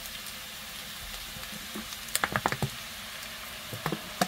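Parboiled potato cubes sizzling in oil in a nonstick frying pan. About two seconds in, a quick run of about six knocks and scrapes from a spatula as the potatoes are pushed to one side of the pan, and a couple more near the end.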